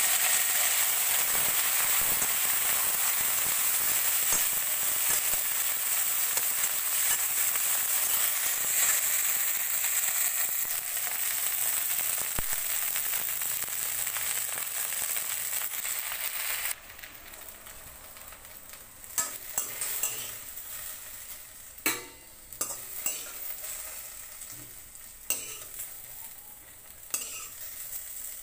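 Cut okra sizzling in hot oil in a steel kadhai, a steady hiss that eases slowly. About two-thirds of the way through the hiss drops sharply, and a metal spatula scrapes and knocks against the pan several times as the okra is scooped out.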